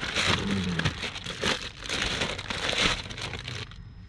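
Clear plastic bag crinkling and rustling in the hands as a cone air filter is unwrapped. It dies away about three and a half seconds in.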